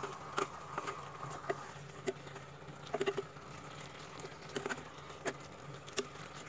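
Spatula knocking and scraping against a non-stick kadai while fish pieces are turned over in thick masala: a dozen or so irregular soft taps and clacks.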